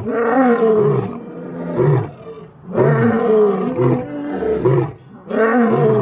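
Lion roaring: three long roars, the last one near the end.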